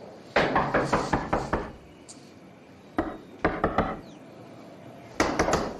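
Knocking on a wooden door: several rounds of quick raps with short pauses between them.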